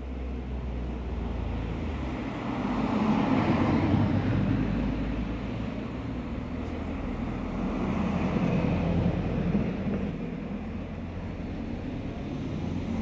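Street traffic: vehicles passing close by, the sound swelling about three to four seconds in and again around eight to nine seconds, over a steady low rumble.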